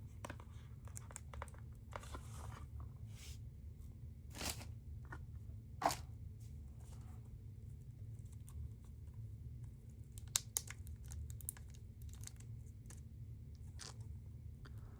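Sealed packaging being opened by hand: tearing and crinkling with scattered clicks and taps, over a steady low hum.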